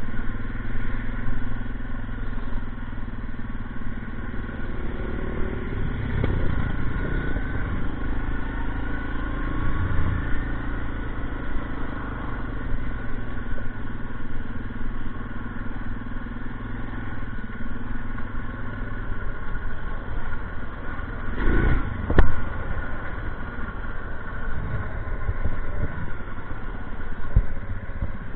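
ATV engine running as the quad is ridden down a rough dirt trail, its pitch rising and falling with the throttle, with rattling over the bumps and one sharp knock about three quarters of the way through.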